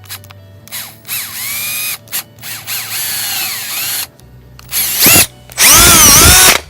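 Power drill boring through the plastic strain-relief collar of a MacBook Pro power adapter cord, run in four short bursts with the motor speed rising and falling on the trigger; the last two bursts are the loudest.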